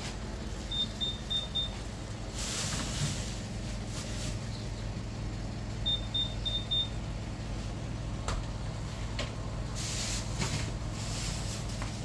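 Two runs of four quick high-pitched electronic beeps from the shop counter, about five seconds apart, with plastic bag rustling in short bursts between them over a steady low hum.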